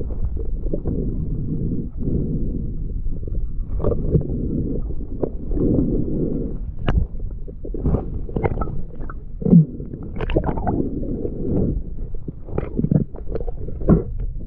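Muffled underwater sound, as recorded by a camera under water: a low churning rumble of moving water with scattered clicks and knocks and a few short gurgles. The loudest knocks come about two-thirds of the way in and again near the end.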